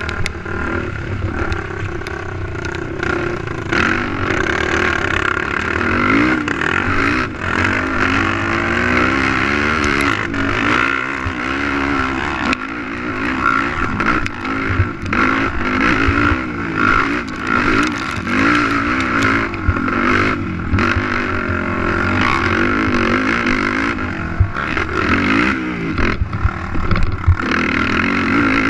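Race ATV engine revving up and down continuously as the quad is ridden hard, with scattered knocks and rattles.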